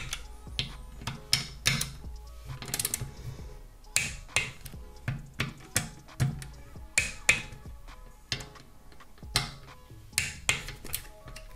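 Torque wrench ratchet clicking in short, irregular strokes as bolts are tightened, a couple of sharp clicks a second, over background music.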